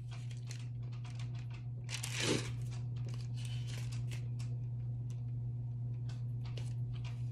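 Thin Bible pages rustling and crinkling as they are handled and turned, with a louder rustle about two seconds in, over a steady low hum.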